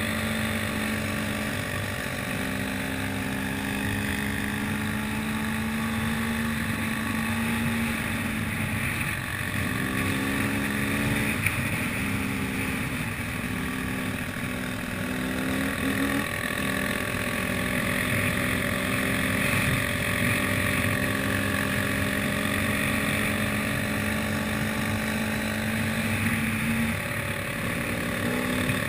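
Enduro dirt bike engine running steadily under way, its pitch stepping and gliding up and down a few times in the middle stretch.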